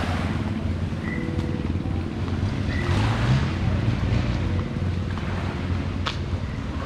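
A boat engine running steadily with a low hum, under the wash of waves and wind on the microphone.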